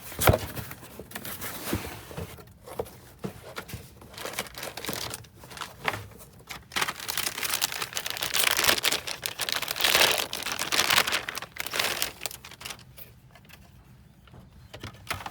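Hands working on the computer's parts: irregular rustling and crinkling with small clicks and knocks, busiest in the middle and dying down near the end.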